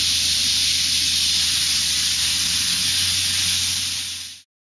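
Steady loud hiss with a low hum beneath it, fading out quickly about four seconds in and cutting to dead silence.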